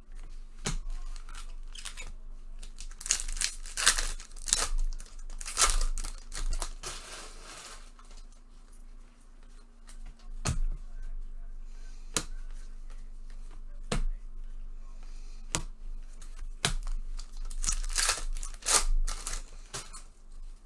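Baseball card pack wrappers being torn open and crinkled in several bouts. Short sharp clicks of cards being handled fall between them.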